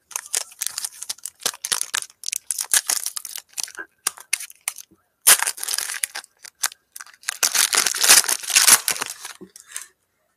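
Trading card pack wrappers being torn open and crumpled: two stretches of dense crinkling, each a few seconds long, with a short pause between.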